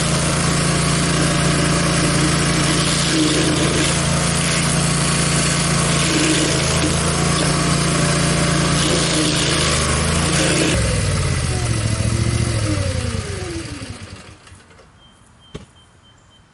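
Barreto 30G 19-inch stump grinder running steadily and loud, with a rough noise that swells and eases at times. About eleven seconds in it is shut off and winds down, its pitch falling over about three seconds until it dies away.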